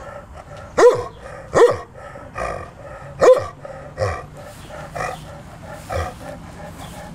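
Twelve-year-old Newfoundland dog barking: a run of short barks about a second apart, the loudest three in the first half, then weaker ones toward the end.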